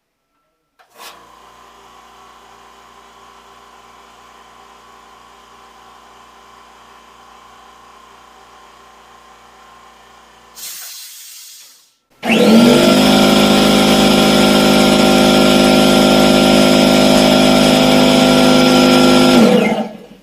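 California Air Tools 10020C oil-free 2 hp air compressor running steadily and fairly quietly, followed by a brief hiss. Then a standard pancake air compressor runs much louder for about eight seconds and cuts off.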